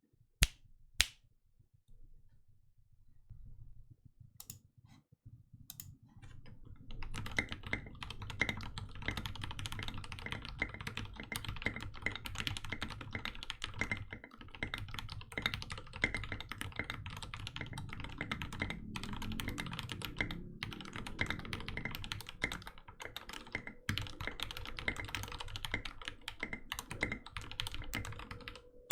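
Typing on a Canoe PC mechanical keyboard with lubed Gateron Ink Black linear switches, an aluminium plate and SA keycaps. A few separate sharp key strokes at first, then fast continuous typing from about seven seconds in.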